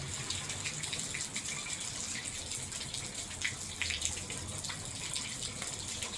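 Steady rain with water running and dripping off the gutters and downspouts, with scattered small ticks and drips throughout.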